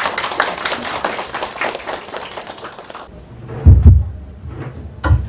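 Audience applauding, many hands clapping together, dying away about three seconds in. About half a second later come a couple of heavy, low thumps, the loudest sounds here.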